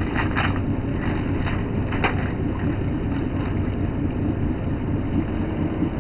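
Fishing boat's engine running steadily, a low rumble, with wind on the microphone and a few short knocks in the first two seconds.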